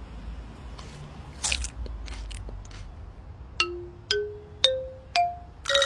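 A few soft crunchy clicks, then a run of four short plucked notes, each one higher in pitch than the last: a comic musical sound effect starting about three and a half seconds in.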